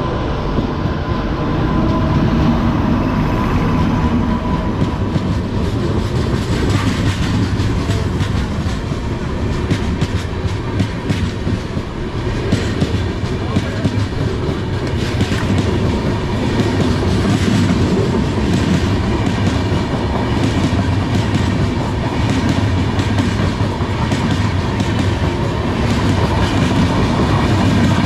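Indian Railways sleeper-class coach running on the line, with a steady rumble and wheels clicking rapidly over the rail joints.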